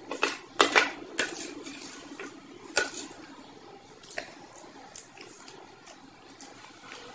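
Metal spoon scraping and clinking against a steel thali as food is scooped up, with several sharp clinks in the first three seconds, then softer wet eating sounds as the spoonful is taken into the mouth, close to the microphone.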